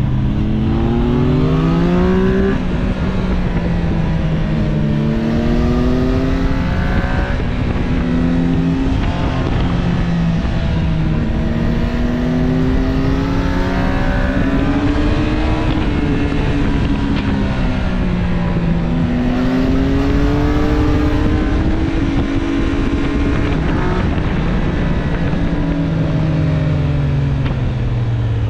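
Triumph inline-triple motorcycle engine heard from the rider's seat, its pitch climbing under throttle and dropping back about half a dozen times as it is ridden through a run of bends, with steady wind rush over it.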